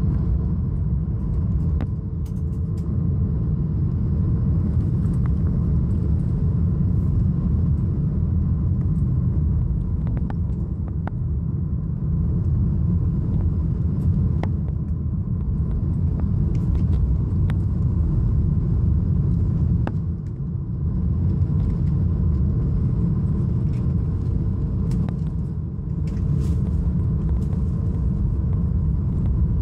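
Steady low rumble inside the cabin of a Boeing 737-700 on approach: its CFM56 engines and the airflow over the airframe heard from a window seat, with a faint steady hum over it.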